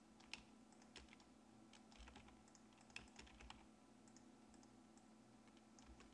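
Faint, scattered taps of computer keyboard keys over a low steady hum.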